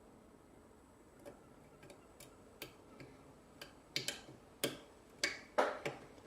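A lock pick clicking against the pins of a six-pin Euro cylinder lock during single-pin picking. Light, separate clicks come about every half second, then grow louder and closer together over the last two seconds as the last holding pin, pin 3, sets.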